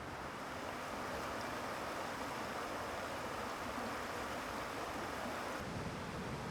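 Mountain stream rushing over rocks in rapids: a steady rush of water. Near the end the sound turns deeper and less hissy.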